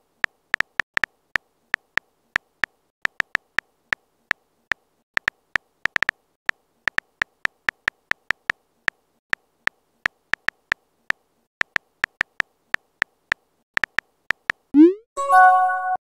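Key clicks of a texting app's on-screen keyboard as a message is typed: short sharp ticks at an uneven pace, about three a second. Near the end comes a quick rising swoop and a short electronic chime.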